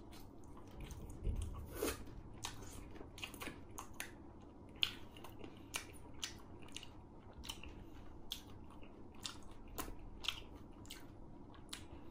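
Chewing a mouthful of crispy batter-fried mushroom: irregular crunches and crackles of the coating, the sharpest about five seconds in.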